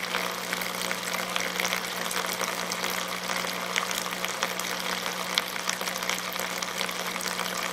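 Oscillating pump humming steadily as it drives water in pulses 60 times a second, with the hiss and crackling splashes of the water jet.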